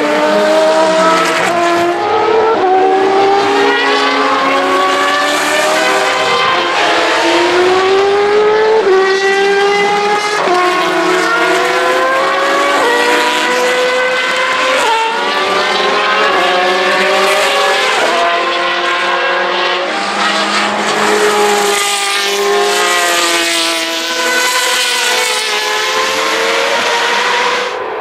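Several single-seater racing car engines at high revs, overlapping as the cars pass. Each engine note climbs steadily through a gear and drops sharply at the upshift, over and over.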